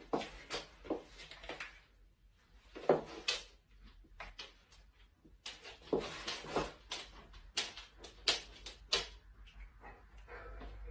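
About fifteen short, irregularly spaced knocks and taps on a hard surface, the loudest about three seconds in.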